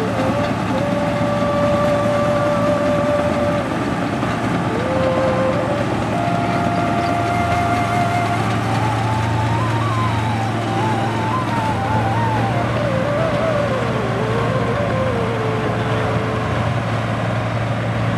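New Holland combine harvester running steadily under load while harvesting rice, a constant engine and threshing drone with a low hum. Over it a single melody line holds notes and wavers up and down.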